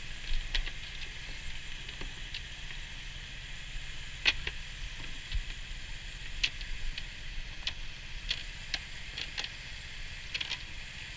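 Water pouring into a round fish-rearing tank from its inflow pipe: a steady splashing hiss with scattered sharp ticks and small splashes, over a low rumble.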